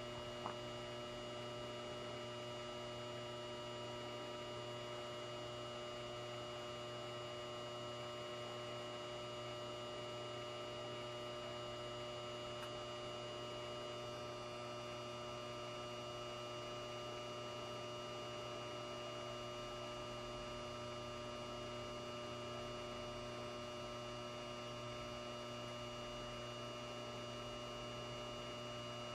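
Cooper Lighting 400-watt high-pressure sodium flood light running with a steady mains hum from its ballast. There is one short click about half a second in.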